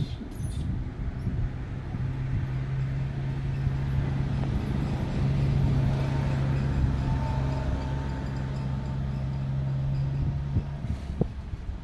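A motor engine running with a steady low hum, growing louder toward the middle and stopping shortly before the end.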